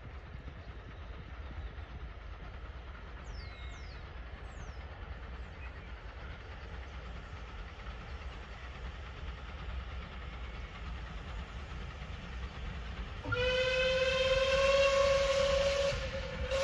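A low, steady rumble, then about 13 seconds in a steam locomotive's whistle sounds one long, slightly rising note for about three seconds, with a short toot just after.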